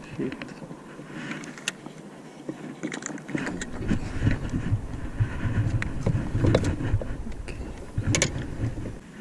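Handling noise of fishing gear in an inflatable boat: scattered clicks, knocks and rattles of rod, reel and fittings, growing busier and louder from about three and a half seconds in.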